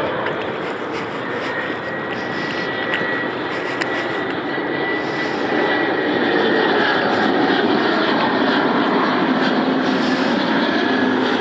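Airliner's engines running, a dense steady noise with a faint high whine, growing louder about halfway through.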